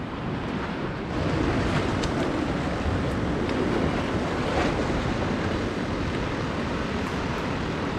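Steady rushing of wind and surf, with a few faint clicks.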